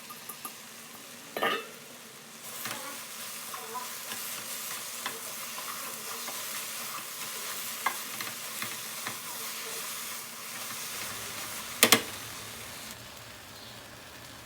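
Food sizzling in hot oil in a pan while being stirred, with small scrapes and clicks of the utensil. A louder double clack of the utensil against the pan comes just before the end.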